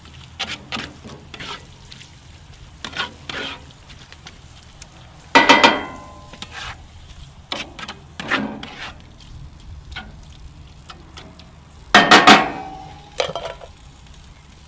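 Ground beef sizzling in cast-iron skillets while a metal utensil stirs it, with small scattered clicks. Two loud scrapes of metal against the pan stand out, about a third of the way in and again near the end.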